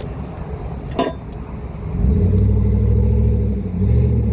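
A motor vehicle engine running close by, starting about halfway through as a low rumble with a steady hum, with a brief dip near the end. A single sharp click sounds about a second in.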